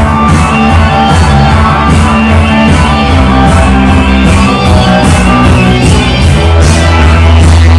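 Loud rock and roll dance music played through a DJ sound system, with a heavy bass and a steady beat, part of a DJ mix.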